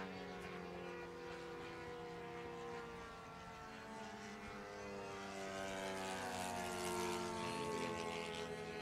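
Several racing radio-control model airplanes flying the course, their engines and propellers buzzing over one another with pitch sliding up and down as they pass, growing a little louder in the second half.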